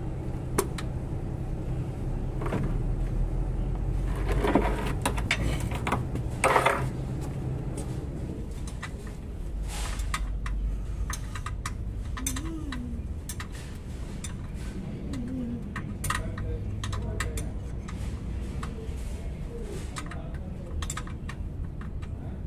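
Metal clinks and scrapes of a wrench working bolts under a truck's gearbox, with two louder clanks in the first seven seconds and scattered light ticks after, over a steady low hum.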